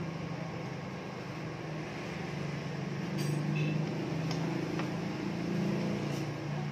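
A few light metallic clinks of hand tools on metal at a scooter's front CVT pulley and crankshaft end, spaced irregularly over a steady low hum.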